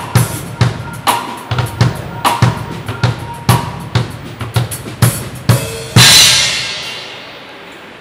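Acoustic drum kit played in a steady beat of kick drum and snare. About six seconds in it ends on a loud cymbal crash that rings and fades away.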